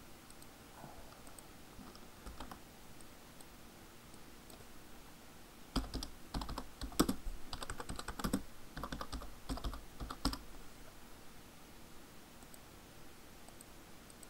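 Typing on a computer keyboard: a quick run of key clicks lasting about four seconds, in the middle, with a few faint clicks before it.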